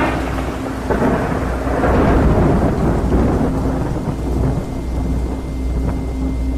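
Thunderstorm: thunder rumbling over steady rain, the rumble swelling about a second in and again about two seconds in, with a steady low hum beneath.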